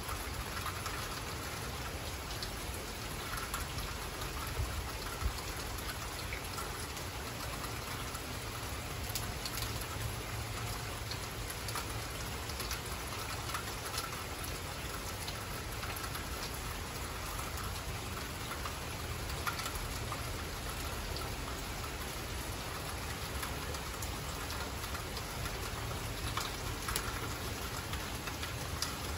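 Steady rain falling, with scattered sharper drops pattering close by.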